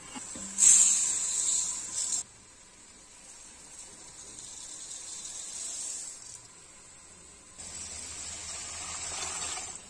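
Dry Ponni raw rice poured into a stainless steel pot, a hissing rattle of grains on metal, loudest in the first two seconds and softer from about three seconds in. Near the end, tap water runs into the pot onto the rice, a rushing splash with a low rumble.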